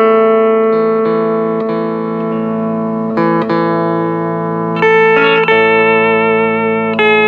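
Hawaiian steel guitar playing a slow melody in long held notes. The notes change about three seconds in and again about five seconds in, and the later note wavers in a vibrato.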